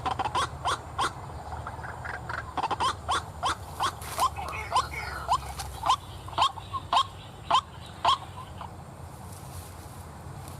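White-breasted waterhen calls: a rapid series of short, harsh 'kruak' notes, about two to three a second, that stops about eight seconds in, over a steady low hum.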